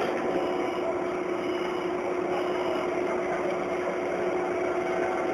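Steady hum of a stationary KCR electric train, heard inside the carriage with the doors open: one steady mid-pitched tone over a broad hum. Faint short high beeps come about once a second in the first half.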